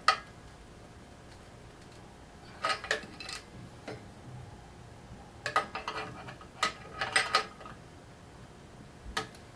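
Open-end wrench clinking against a turn signal's mounting nut as the nut is tightened, in short bursts of metal clicks with pauses between them as the wrench is repositioned.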